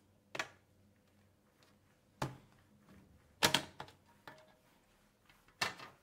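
Laptop bottom cover's snap-in clips unclipping as the panel is pried off by hand: a handful of sharp clicks and snaps, a few of them close together in the middle.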